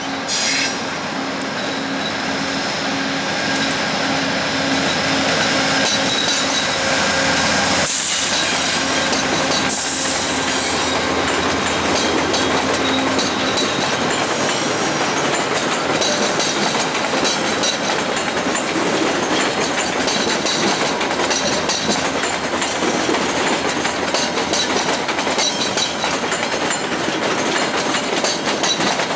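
VIA Rail passenger train, a GE P42 diesel locomotive hauling LRC cars, rolling slowly into the station. The wheels rumble steadily and click over rail joints and switches, with some wheel squeal. A steady engine hum is present until the locomotive has passed, about halfway through.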